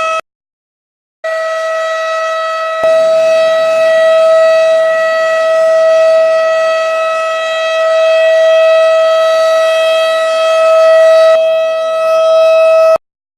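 Synthesized single-tone siren held at one steady pitch, a tone rich in overtones. It starts after a short silent gap and grows louder and fuller about three seconds in. It cuts off abruptly near the end.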